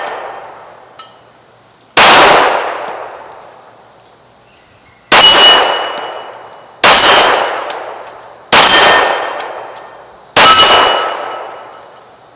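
Five pistol shots from a Springfield Range Officer 1911, spaced about one and a half to three seconds apart. Each shot is followed by the ringing clang of a hit steel plate target and a long fading echo.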